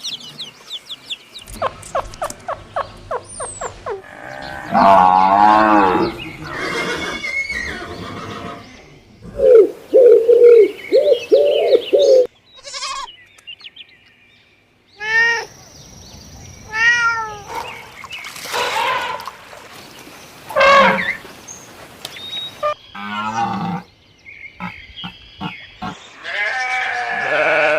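A run of different farm animals calling one after another, with abrupt cuts between them: pitched cries, rapid pulsed calls and repeated short calls, each a few seconds long.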